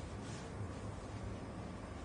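Quiet changing-room ambience: a steady low hum and faint hiss, with no distinct events.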